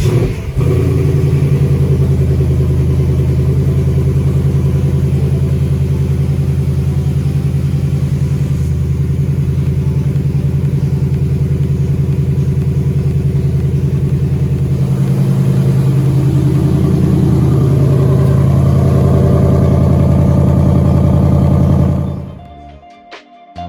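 Ford Mustang GT's V8 engine catching right at the start and running at a steady idle, rising slightly partway through, then fading out about 22 seconds in.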